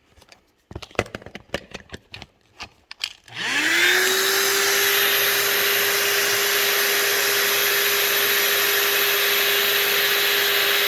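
A run of clicks and knocks, then an electric air-mattress inflation pump starts about three and a half seconds in. Its hum rises quickly to a steady pitch over a rush of air, and it keeps running steadily as the mattress fills.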